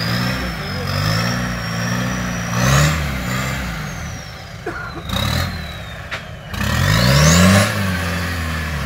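Off-road 4x4's engine revving up and down as it drives through deep mud, with a high whine rising and falling with the revs. The loudest part is a long rising rev about seven seconds in.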